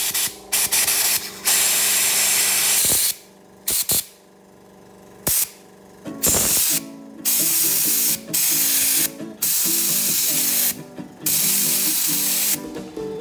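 Compressed-air blow gun blasting air into a Shimano MT200 hydraulic disc brake caliper, in about eight hissing bursts, most lasting a second or so, with short gaps between them.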